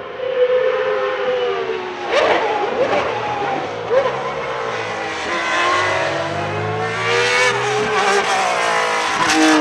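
Ferrari 333 SP's 4.0-litre V12 racing engine as the car passes. The pitch falls over the first couple of seconds as it eases off, with a few short sharp cracks, then climbs steadily under acceleration. It drops briefly near the end at an upshift and climbs again.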